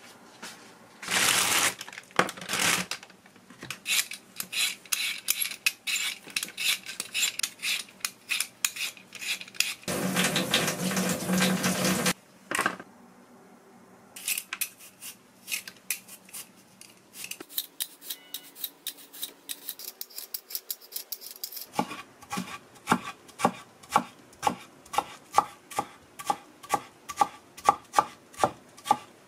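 Kitchen prep: quick scraping strokes of a vegetable peeler on potatoes, a brief loud rush of noise, then a kitchen knife chopping thin potato strips on a wooden cutting board in a steady rhythm of about two or three chops a second.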